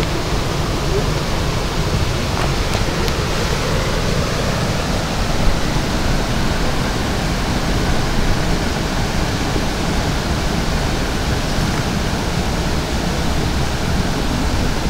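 Steady wind blowing across the microphone: an even rushing noise with a heavy low rumble.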